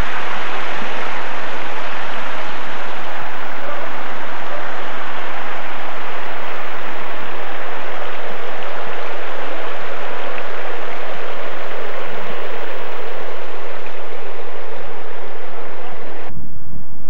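Steady rush of water pouring into the 9/11 Memorial's waterfall pools, cutting off abruptly near the end.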